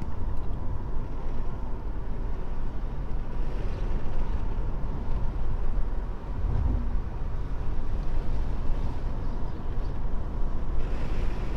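Steady road and engine noise of a car cruising at town speed, heard from inside the cabin: a low rumble with no distinct events.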